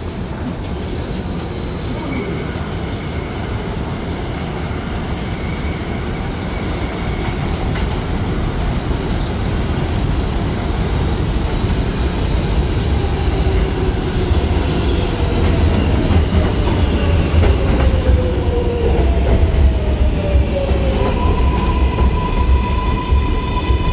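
Kawasaki R188 subway train arriving: a low rumble with clickety-clack grows louder as it approaches. Its wheels squeal with falling pitch as it runs in along the platform, and a steady whine starts near the end as it slows to a stop.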